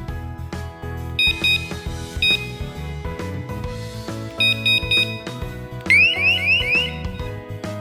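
Background music with an electronic alarm sounding over it: short high beeps in groups of two or three, then, about six seconds in, four quick rising siren whoops.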